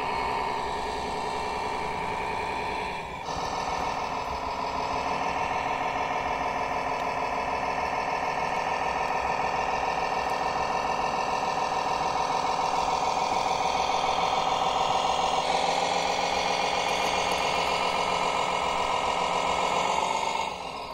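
Diesel engine sound from a radio-controlled MAN truck's sound module, running steadily with small rises and falls in revs as the truck pulls a loaded tipper trailer. The sound changes abruptly about three seconds in and again near the end.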